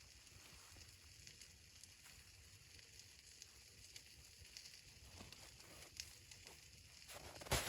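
Faint, scattered crackling of a wood fire, with one louder sharp crunch near the end.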